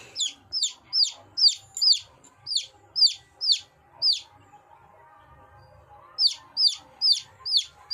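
Chick peeping in a quick series of loud, high, down-sweeping peeps, about two or three a second; it stops for about two seconds near the middle, then four more peeps follow.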